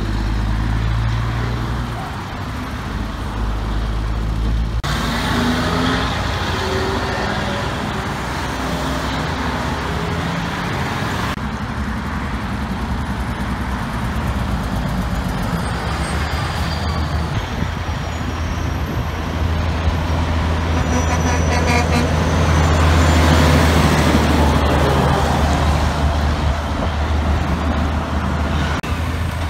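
Heavy dump trucks' diesel engines running as they drive past, over steady road and traffic noise. The sound changes abruptly twice, about five and eleven seconds in, as one passing truck gives way to another.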